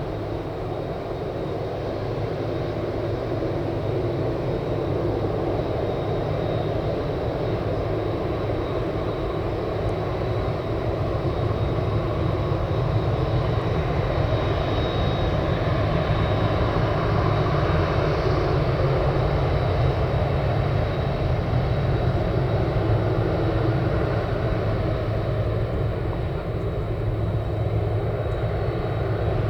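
Jet engines of a Boeing 767-300ER airliner running, a steady roar with a thin high whine that grows louder toward the middle and eases slightly near the end.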